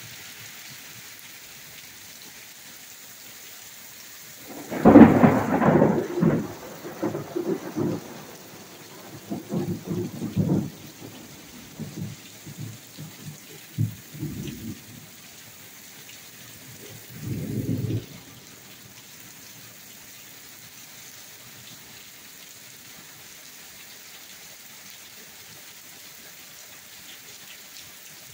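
Heavy rain falling steadily on brick pavement and a street, with a loud thunderclap about five seconds in that cracks and then rolls on in rumbles for several seconds. A last, shorter rumble comes a few seconds later.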